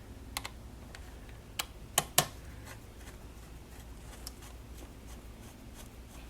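Sharp clicks and taps of small parts being handled while fitting an M.2 heatsink onto a motherboard: a few clicks in the first seconds, two loudest close together about two seconds in, then faint ticks.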